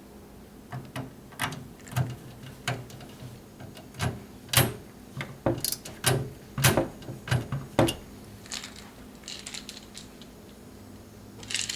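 A run of sharp clicks and knocks at irregular intervals, the sound of small hard parts being handled and set down during a PC build, followed by a few brief rustles near the end.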